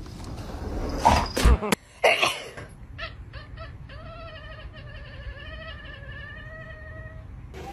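A few loud bursts of noise in the first two seconds, then an orange cat gives one long, wavering yowl lasting about three and a half seconds.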